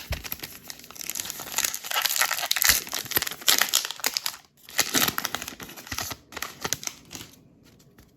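A plastic wrapper on a pack of baseball cards being torn open and crinkled, in a dense crackle of rustling with a short pause partway through.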